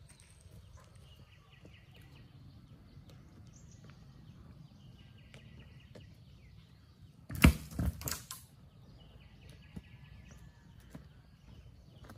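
A long wooden pole dropped onto bare dirt, landing with a loud thud and a few quick clattering bounces about halfway through. Faint repeated chirping in the background.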